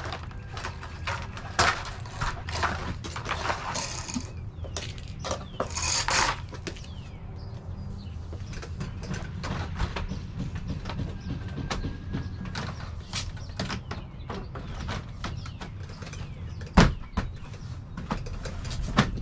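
Hand work on white vinyl siding: scattered clicks, taps and scraping of plastic siding pieces and tools, with a couple of short rasping passages early on and one sharp knock about 17 seconds in.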